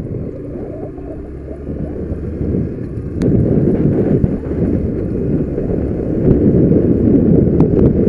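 Wind buffeting the microphone of a rider-worn camera on a moving Honda motorcycle, with the bike's engine running underneath. It gets louder about three seconds in as the bike picks up speed.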